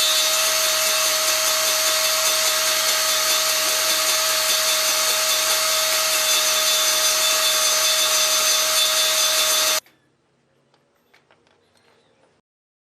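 Table saw running at speed with a steady high whine, cutting wood; the sound stops abruptly about ten seconds in, followed by a few faint small knocks.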